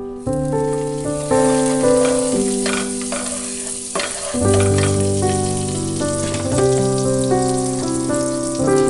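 Butter melting and sizzling in a hot nonstick frying pan as a spatula spreads it around, with background music playing over it.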